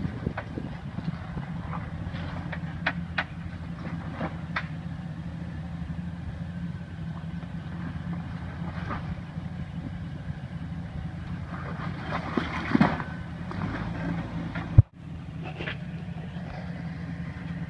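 Jeep Wrangler engine running steadily at low crawling speed as the Jeep climbs a rock ledge, with scattered clicks and knocks of tyres and metal on rock, and one loud sharp knock near the end.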